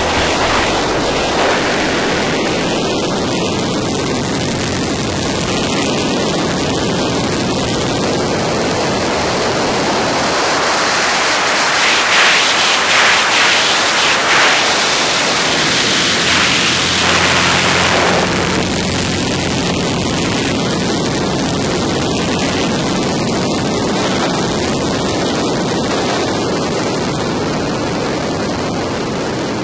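Zlin Z-50 M aerobatic plane's 180 hp piston engine and the rush of airflow over a wing-mounted camera, a loud, steady noise. About ten seconds in, the low engine note fades for several seconds while the airflow hiss grows brighter and a little louder, then the steady mix returns.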